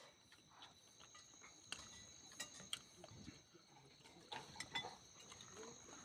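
Faint mouth sounds of a person eating: scattered wet clicks and smacks while chewing, busiest about four to five seconds in, over a faint steady high whine.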